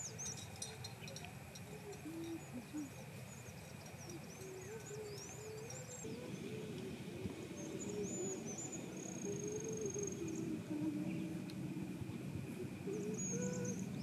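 Small birds chirping and twittering with quick high notes and a few longer whistles, over a faint steady insect hum. A low wavering tone joins in from about four seconds in and grows a little louder.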